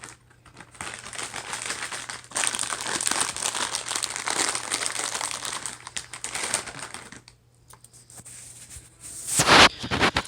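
Plastic bag of zip ties crinkling as it is handled and rummaged through, loudest in the middle stretch, then quieter. Near the end a single loud bump close to the microphone.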